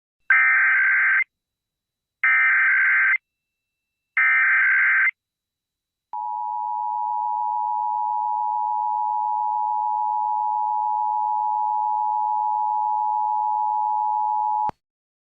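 Emergency Alert System broadcast signal: three one-second bursts of the SAME digital header, a warbling data screech, then the steady attention tone near 1 kHz held for about eight seconds and cut off abruptly, announcing an emergency message.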